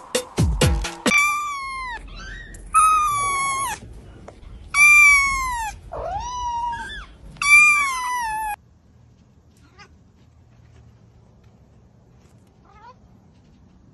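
A kitten meowing: about five high meows, each falling in pitch, the last ending about two-thirds of the way through. About a second of music with a beat stops just before the first meow.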